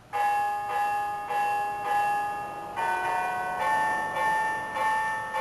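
Verdin carillon bells playing a tune: the bells start suddenly and strike a new note roughly every half second, each note ringing on under the next. The notes change about three seconds in as the melody moves on.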